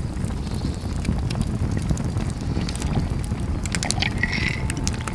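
Wind buffeting the microphone in a steady low rumble, with the irregular sharp crackle of a wood campfire.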